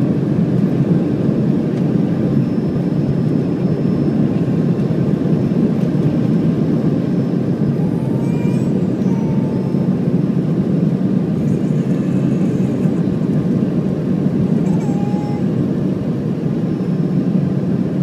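Steady cabin drone of an Embraer ERJ-135 regional jet in flight, the rumble of its two rear-mounted turbofans and the airflow over the fuselage heard from inside the passenger cabin.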